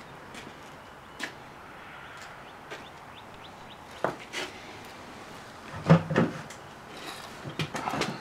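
Foley 387 saw filer running with a hand saw clamped in it: a steady low hum under clacks and metallic rasps from the filing and tooth-feed mechanism, coming roughly every second and a half, with the loudest cluster about six seconds in.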